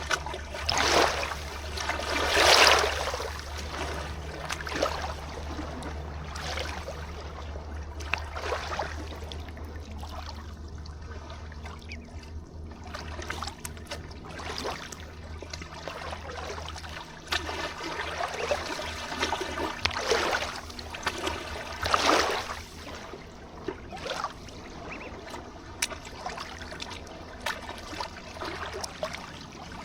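River water trickling and lapping in repeated surges, louder about two seconds in and again about twenty-two seconds in, over a steady low rumble.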